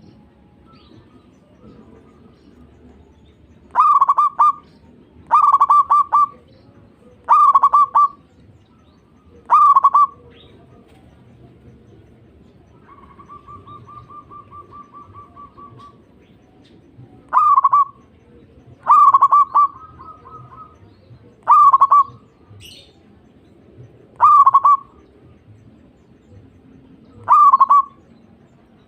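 Zebra dove (perkutut) cooing: nine short, loud phrases, each a quick run of notes, with gaps of a few seconds between them. A softer rapid trill fills the longer gap near the middle.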